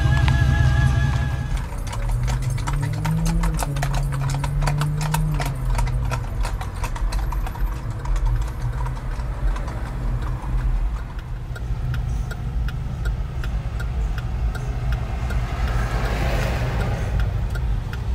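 Hooves of several horses clip-clopping on an asphalt street as the riders walk, the hoof clicks thickest in the first half, over a low steady vehicle engine hum.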